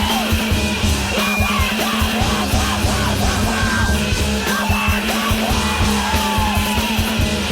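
Loud noise-punk rock: yelled vocals over fast, dense drums and a steady droning low note.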